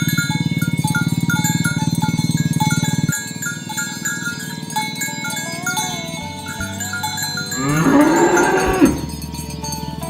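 A cow moos once, about three-quarters of the way in: a single long call that rises in pitch and then holds before cutting off. The moo is heard over background music with a repeating melody. A loud low buzz in the music stops about three seconds in.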